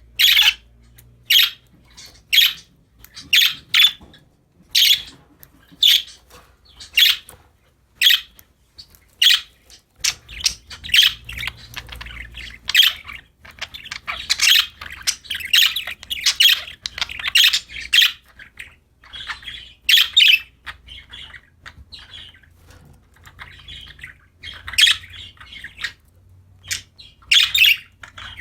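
Pet budgerigars (parakeets) chirping and squawking. Sharp high calls come about once a second at first; from about ten seconds in they run into denser, overlapping chatter, which thins out again near the end.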